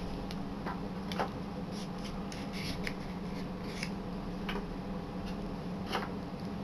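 Scattered light clicks and short scrapes, like objects being handled, over a steady low hum.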